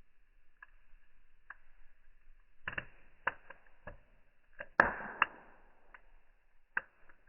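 Fire crackling, with its sound slowed down. Scattered sharp pops come at irregular intervals. The loudest is about five seconds in and is followed by a brief hiss.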